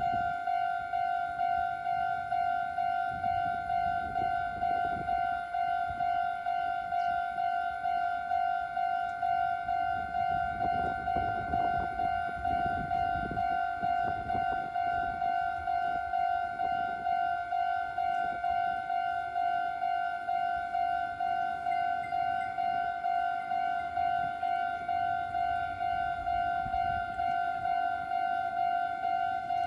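Railway level-crossing warning bell ringing: an electronic ding repeating evenly at one pitch. A low rumble swells under it from about ten to sixteen seconds in.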